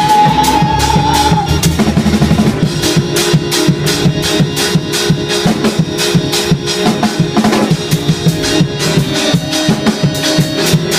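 Live gospel praise-break music: a drum kit plays a fast, driving beat of kick, snare and rim shots under the band, with one high note held over the first second and a half.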